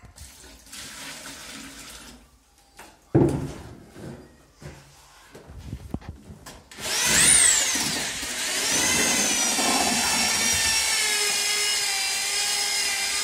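Electric drill with a paddle mixer starts about seven seconds in, stirring a bucket of wet floor screed mix. Its whine rises sharply, falls back, then runs steadily. Before it there are scattered knocks and clatter, with one loud knock about three seconds in.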